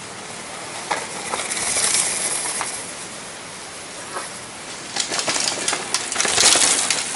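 Downhill mountain bike tyres crunching and skidding over rock and loose gravel, with rattles and knocks from the bike. There is a shorter spell about a second in and a louder one near the end as a rider comes through the rocky section.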